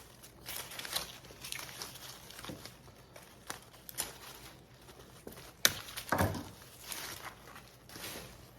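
Rustling and light clicks of artificial greenery and flower stems being handled and arranged around a lantern, with a sharp click and then a knock a little past the middle.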